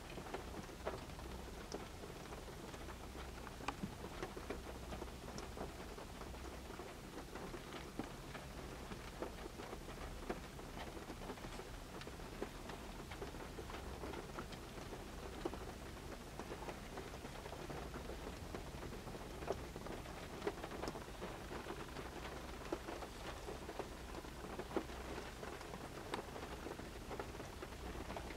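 Rain pattering on a car's roof and windscreen, heard from inside the cabin as a steady hiss of many small irregular ticks, with a low hum underneath.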